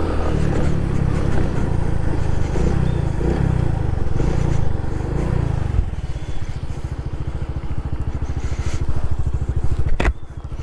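Honda Pop 110i's small single-cylinder four-stroke engine pulling under varying throttle, its pitch rising and falling, then dropping to a steady idle about six seconds in as the bike stops. A sharp knock near the end.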